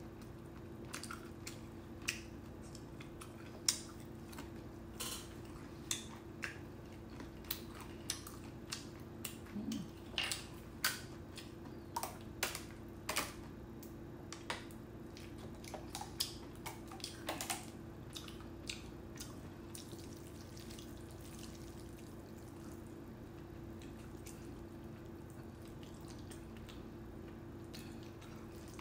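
Close-up eating sounds of a person chewing jjajangmyeon noodles: many short wet mouth clicks and smacks, frequent for most of the stretch and sparser near the end. A steady low hum runs underneath.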